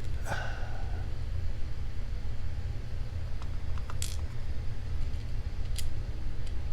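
Small lock pins and springs being dumped out of a cylinder into a tray: one ringing metallic clink just after the start, then a few light ticks and clicks. A steady low hum runs underneath.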